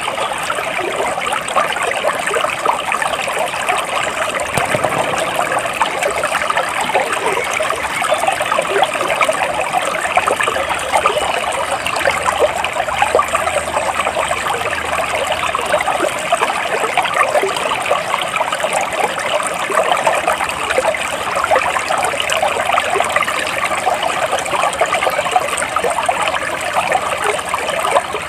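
Flowing stream water trickling and babbling, steady and unbroken.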